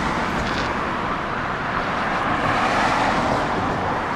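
Motorcycle engine running steadily at low speed, under an even rush of noise.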